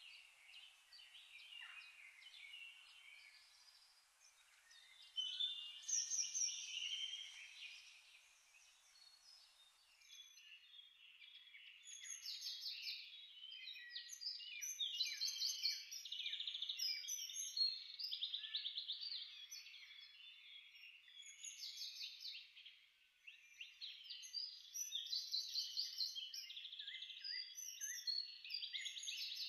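Several birds chirping and trilling in a thin, tinny birdsong background with nothing low in it. The birdsong changes abruptly about a third of the way in.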